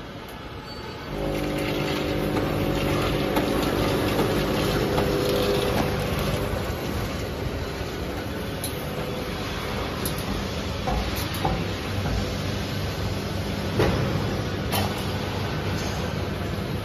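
Automatic pouch-packing line machinery running: a steady mechanical hum that gets louder about a second in, with several steady motor tones for a few seconds. Occasional sharp clicks and knocks from the machines follow.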